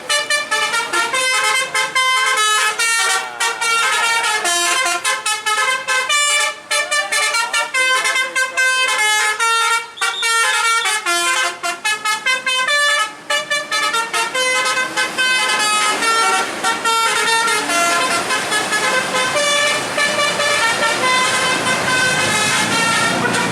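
Bus telolet horn, a multi-trumpet musical air horn, playing quick tunes of short notes one after another, the notes overlapping into a denser chord near the end.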